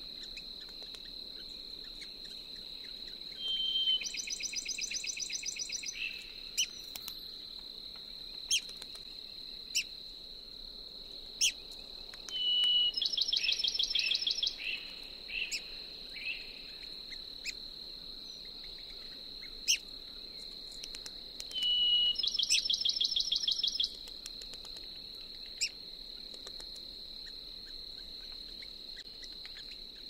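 Bachman's sparrow singing three times, each song a long clear whistle followed by a fast ringing trill of repeated notes, over a steady high-pitched insect drone. A few short sharp notes from another bird fall between the songs.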